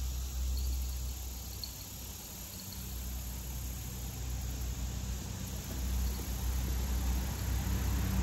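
A vehicle engine running steadily, a low hum that grows louder toward the end, with faint insect chirps in the first couple of seconds.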